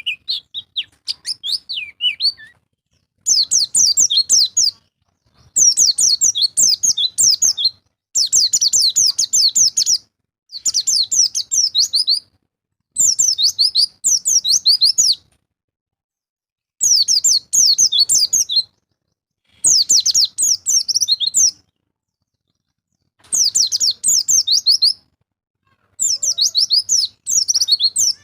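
White-eye (pleci) singing in repeated bursts of rapid, high-pitched warbling chatter, each about two seconds long with short pauses between, about nine bouts in all.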